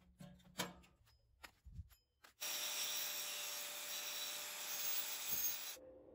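Faint clicks and a light knock of thin steel as a grinder-cut disc is pushed free of a steel plate, then a faint steady hiss that cuts off suddenly near the end.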